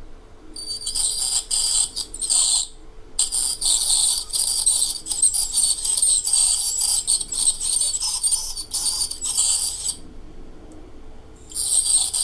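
Handheld electric dental drill running against the teeth in bursts, a high-pitched whine that breaks off briefly about three seconds in, stops for over a second near the end, then starts again. It is grinding tartar (dental calculus) off the front teeth.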